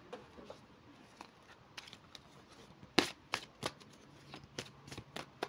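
Tarot cards being handled and laid down on a table: a string of irregular soft snaps and slaps, the loudest about three seconds in.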